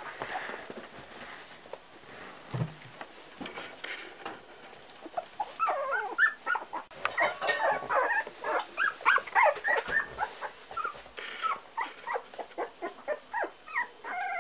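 Four-week-old Parson Russell Terrier puppies whining and yipping in many short, high-pitched squeals, starting about five seconds in and coming thick and fast.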